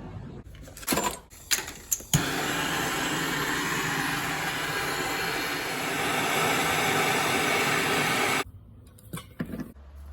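A few sharp knocks, then a loud, steady rushing noise like a motor-driven blower. It starts suddenly about two seconds in and cuts off abruptly about six seconds later.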